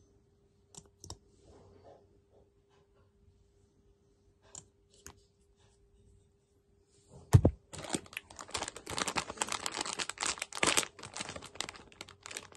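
Small clicks of makeup tubes and caps being handled. About seven seconds in comes a bump, then loud crinkling and rustling of a soft plastic packet being handled.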